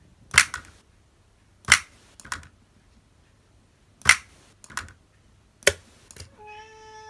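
Solenoid-driven toys playing a MIDI sequence: sharp clacks every one to two seconds from a clapping toy's inflated plastic hands and a solenoid drumstick striking a small drum, some followed by a smaller clack. Near the end a cat meows once, a long call that falls slightly in pitch.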